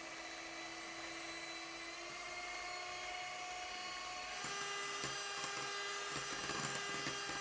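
Handheld electric mixer running steadily, its beaters whipping egg whites and sugar in a glass bowl; its pitch rises a little about four and a half seconds in.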